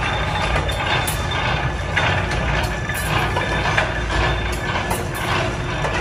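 Workshop machinery running with a steady rumble and a dense metallic clatter, broken by irregular sharp clicks.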